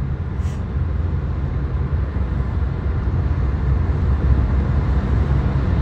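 Car cabin noise, a steady low rumble of engine and road heard from inside the moving car.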